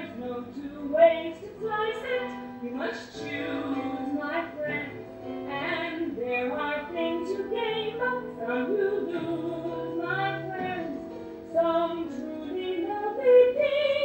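Women singing a musical-theatre show tune over held instrumental accompaniment, recorded live in a small theatre.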